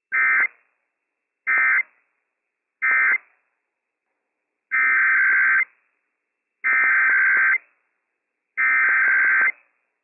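NOAA Weather Radio SAME data bursts, a harsh buzzing two-tone digital warble, sent six times. The first three are short and about a second and a half apart: the end-of-message code closing the Required Monthly Test. The last three are longer, each about a second: the header of the Required Weekly Test.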